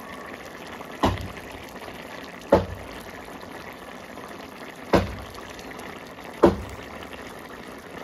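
Pork and jackfruit curry boiling in a wok: a steady bubbling, with four louder single pops of bursting bubbles spaced about one and a half to two and a half seconds apart.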